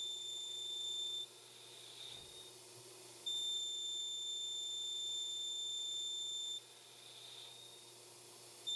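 CNC lathe boring aluminium: a steady high-pitched whine sounds during each slow in-feed and cuts off during the outward facing move. It stops about a second in, returns two seconds later for about three seconds, stops again, and comes back at the very end.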